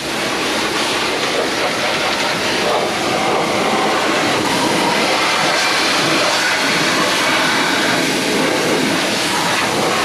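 Pressure washer jet spraying into a car's interior: a steady, loud rushing hiss of water hitting the inside surfaces.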